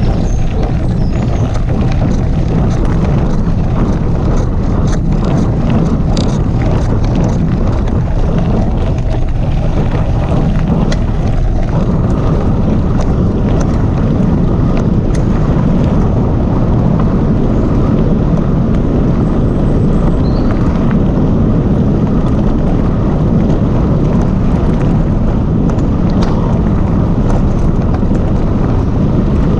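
Wind buffeting the camera microphone over the rumble of a Calibre Bossnut mountain bike's tyres rolling fast on a gravel and dirt trail, with many small clicks and rattles from the bike and loose stones.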